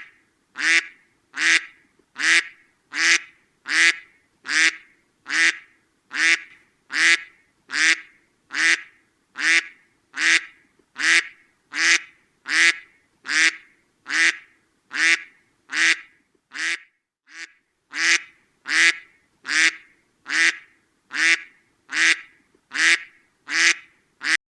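A duck quacking over and over, short loud quacks at an even pace of a little over one a second, with a couple of weaker quacks about two-thirds of the way through.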